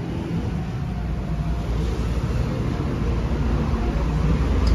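Street traffic: a steady rumble and hiss of cars passing on the road, growing louder near the end.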